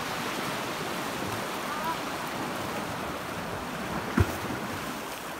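Sea waves washing over a rocky shore, with wind, as a steady rushing noise; a single sharp low thump about four seconds in stands out above it.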